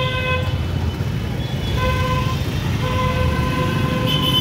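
Street traffic with a vehicle horn honking three times: a short honk at the start, another about two seconds in, and a longer one from about three seconds in, over a steady low rumble of motorbike and scooter engines.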